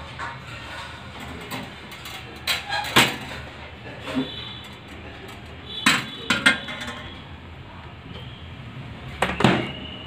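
Metal grill rack clanking and clinking against the inside of a convection microwave oven as it is handled, in three short bursts of clatter.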